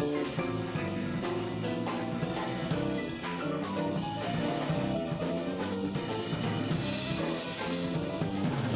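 Live jazz quartet playing, with a drum kit keeping time under the melody.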